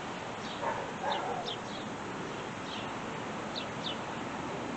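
Small birds chirping now and then, short high falling chirps over steady outdoor background noise, with a faint call about a second in.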